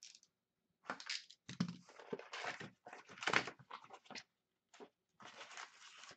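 Rustling and crinkling of a cardboard hockey-card box and its foil packs as the box is opened and the stack of packs is slid out, in irregular bursts with a short pause before the end.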